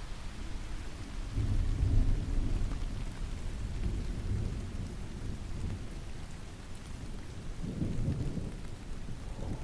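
Steady rain with low rumbles of distant thunder, one swelling about a second and a half in and another near the end.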